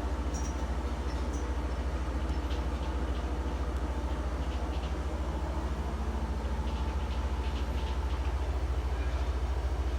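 Steady low mechanical rumble with a fast, even pulse: a motor or engine running without change.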